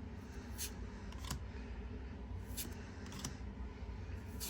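Pokémon trading cards being slid off one another as a freshly opened pack is flipped through, a faint, crisp swish about every second.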